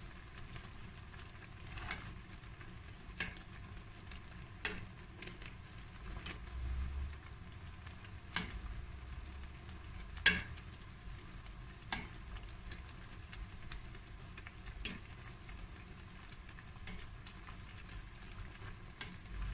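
Koesisters cooking in a pan of boiling sugar syrup, a steady bubbling hiss. Every few seconds a sharp clink comes from the metal slotted spoon striking the stainless pan as they are turned.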